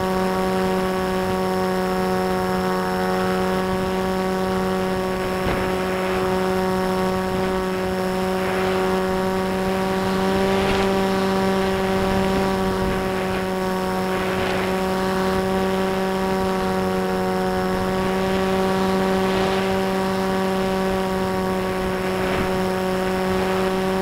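Model airplane's motor and propeller running with a steady whine heard from on board, holding pitch, with swells of wind noise every few seconds.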